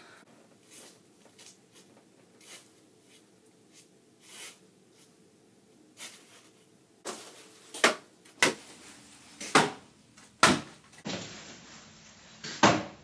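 A long wooden stick knocking and scraping against a curtain rod and wall: a few faint taps at first, then from about seven seconds in a run of sharp knocks.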